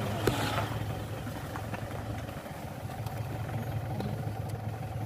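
Car engine running as the car rolls slowly, a steady low hum heard from inside the cabin.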